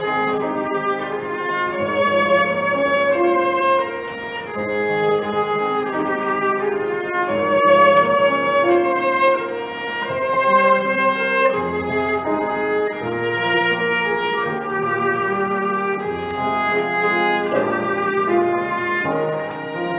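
Violin playing a slow hymn melody in long bowed notes, with piano accompaniment underneath.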